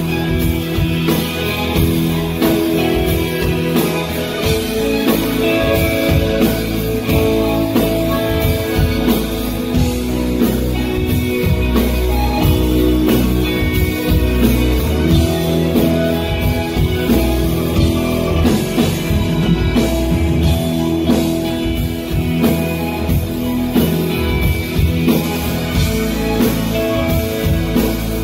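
Live rock band playing an instrumental passage: strummed acoustic guitar, electric bass and drum kit keeping a steady beat.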